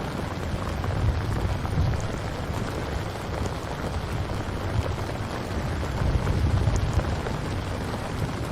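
Steady rain falling, as a rain ambience track, with a low rumble underneath that swells about a second in and again about six seconds in.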